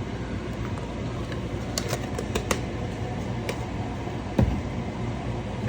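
Steady fan-like hum in a kitchen, with a few light clicks around the middle and a single dull knock near the end, typical of utensils handled at a pot.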